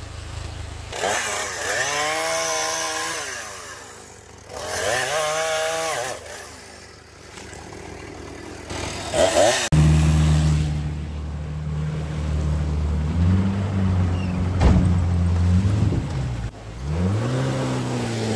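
A chainsaw revving up into cuts through a log, twice, each time rising in pitch, holding, then dropping back, with a shorter rev near nine seconds. From about ten seconds in, a steady low engine note takes over, which fits the boat's outboard motor, with brief revs.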